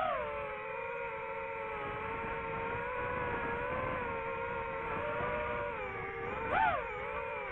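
DJI FPV drone's electric motors and propellers whining steadily. The pitch wavers with the throttle and jumps sharply up and back down about six and a half seconds in.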